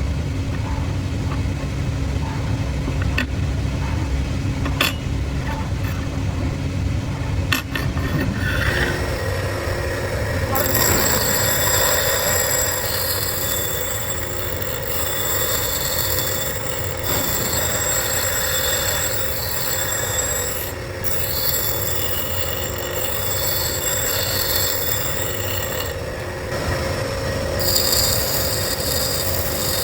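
A power tool grinding steel: a low motor rumble with a few clicks at first, then from about ten seconds in a high, squealing whine as the steel is worked against it.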